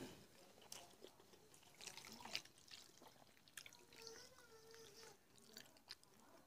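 Near silence, broken by faint, scattered wet clicks and smacks of fingers mixing cooked rice and greens on a plate.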